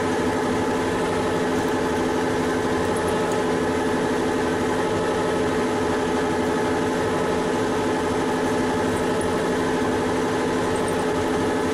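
Metal lathe running steadily at 850 rpm, its geared headstock giving an even hum made of many tones, while a 6 mm drill is fed by hand from the tailstock into the spinning workpiece.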